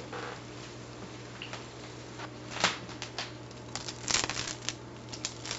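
Metal kitchen tongs clicking and tapping against a wire cooling rack as freshly fried lumpia rolls are lifted and set down on it: one click about halfway through, then a quick run of clicks near the end, over a low steady hum.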